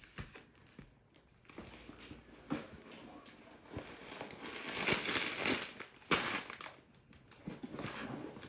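Cardboard packaging being handled and opened, with rustling and crinkling, loudest about five seconds in, and a sharp tap about a second later.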